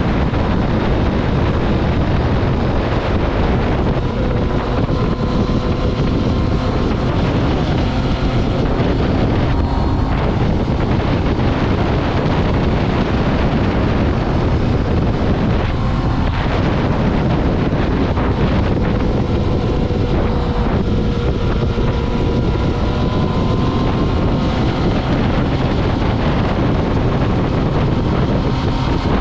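Motorcycle engine running at speed under heavy wind noise on the microphone, its pitch drifting slowly up and down.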